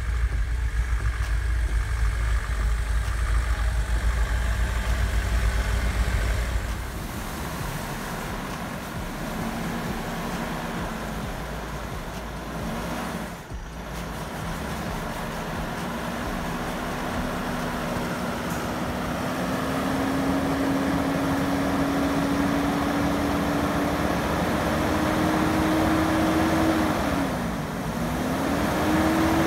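Off-road vehicle driving, its engine running with a heavy low rumble for the first several seconds. After that the engine note climbs slowly and dips twice near the end as the revs change.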